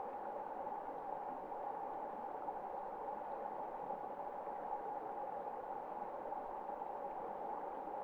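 Shallow rocky stream running over stones, a steady rush of water.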